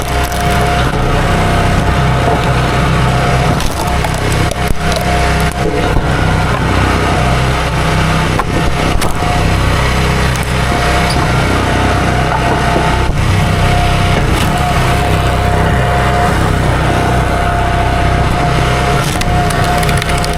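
Small gasoline engine running steadily at constant speed with a steady high whine over it, while wood cracks and splinters now and then.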